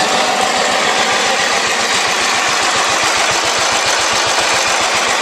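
Small tractor engine running steadily with an even, rapid beat, working normally.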